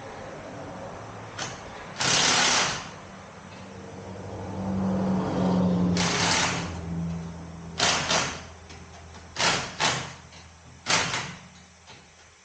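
Impact wrench tightening a wheel's lug nuts in short bursts: two longer runs about two and six seconds in, then several quick trigger pulls, some in pairs, with a low steady hum in the middle.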